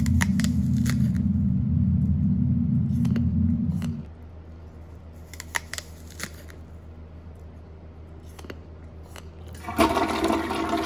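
Close-up chewing of crunchy food, heard as scattered sharp crunches over a deep, steady rumble that drops in level about four seconds in. Near the end comes a louder, longer crunching burst as an apple is bitten.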